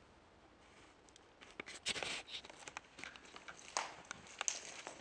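Footsteps and the rustle of debris as people move over a littered carpeted floor: quiet at first, then from about a second and a half in, irregular scuffs, crunches and sharp clicks.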